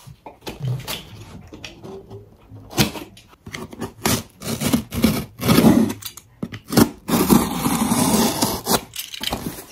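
A cardboard shipping box being cut open with a box cutter: the blade scraping along the taped seam with clicks, knocks and rubbing of cardboard, then a longer, louder scraping rasp about seven seconds in as the box is handled open.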